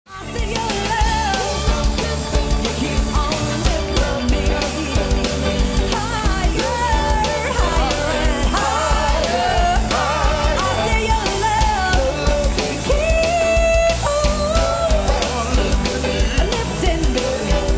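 Upbeat band music with a singing voice over a steady drum beat.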